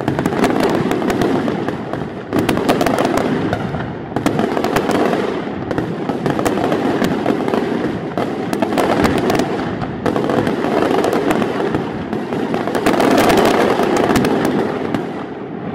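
Daytime aerial fireworks crackling overhead: a dense, unbroken stream of many small overlapping pops as the crackle bursts go off.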